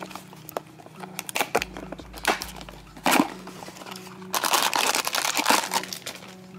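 Handling of a cardboard snack box and the plastic snack bag inside it: scattered taps and clicks of the box being opened, a knock about three seconds in, then a stretch of plastic crinkling from about four to six seconds in as the bag is handled.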